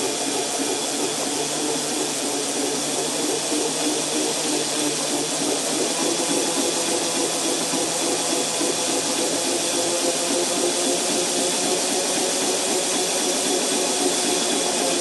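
Large prototype electric motor running at speed in sync with its controller: a steady whine of several tones over an even hiss.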